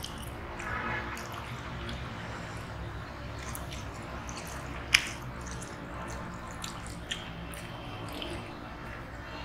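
Fingers squishing and kneading rice soaked in thin curry on a steel plate, with wet mouth sounds as a handful is eaten. One sharp click about five seconds in, and a smaller one about two seconds later.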